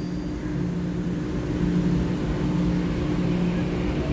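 EMU3000 electric multiple unit pulling out of the station: a steady low hum of the traction equipment over the rumble of the cars moving past, growing a little louder as the train gathers speed.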